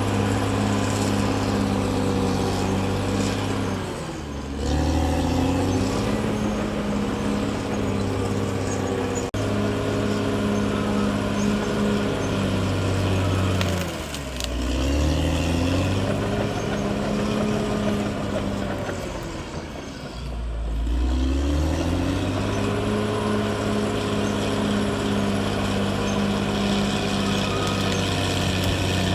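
CAT D6R XL bulldozer's diesel engine running steadily under work. Three times its engine speed sags and then climbs back up.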